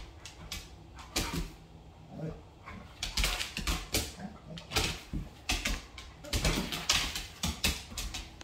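Scuffling on a hardwood floor: a Doberman's claws clicking and scrabbling in bursts of quick clicks as it lunges and dances around a rooster.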